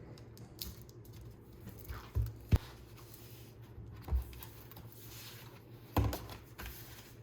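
Handling noises from a music album being unwrapped and opened: soft rustling and tearing of packaging, with a few light knocks and clicks.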